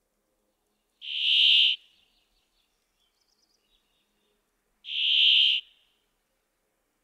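Male brambling singing: two drawn-out buzzy notes, each a little under a second long and about four seconds apart.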